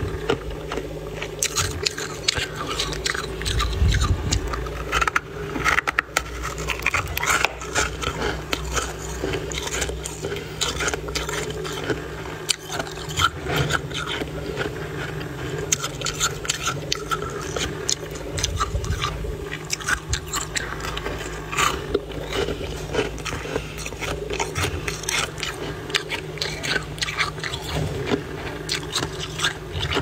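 Thick, fluffy freezer frost being crunched and scraped: a dense, irregular run of squeaky crunches and crackles, over a steady low hum.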